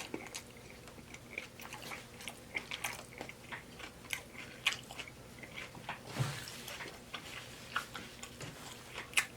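Close-miked chewing of taco salad: irregular wet mouth clicks and crunches as the food is bitten and chewed, with a brief low thump about six seconds in.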